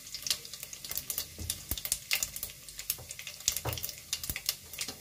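Cumin seeds and dry red chillies sizzling in hot oil, with rapid, irregular crackles and pops: the oil is hot enough for tempering.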